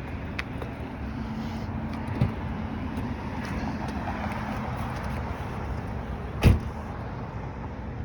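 A car door shutting with one sharp thud about six and a half seconds in, after a lighter knock, over steady outdoor background noise.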